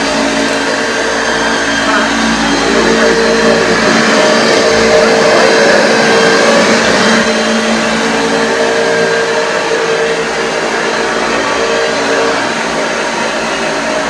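1981 Hoover Junior U1040 upright vacuum cleaner running on a rug. Its 300-watt motor gives a steady, loud hum with a strong whining tone that wavers briefly twice as it is worked over the pile.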